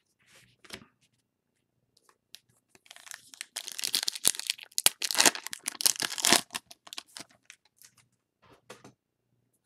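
Silver foil wrapper of a baseball card pack being torn open by hand: a dense crinkling and tearing that starts about three seconds in and lasts about four seconds.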